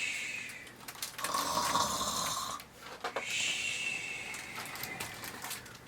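A storyteller's snoring imitation for the sleeping bear: slow, breathy snores, about three long breaths in and out.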